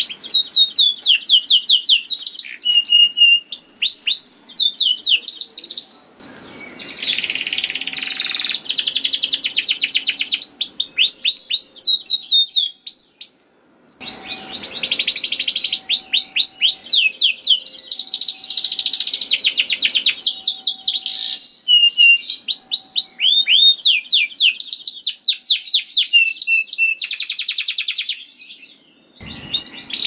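Domestic canary singing long phrases of fast rolling trills and rapidly repeated sweeping notes, broken by brief pauses about 6 and 14 seconds in and again near the end.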